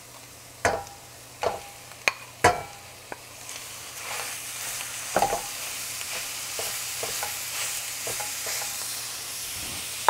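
A wooden spoon knocks a few times as raw ground beef is scraped from a bowl into a stainless steel frying pan. About three and a half seconds in, a steady sizzle starts as the meat fries in hot oil with sautéed onions, with occasional scrapes and taps of the spoon while it is stirred.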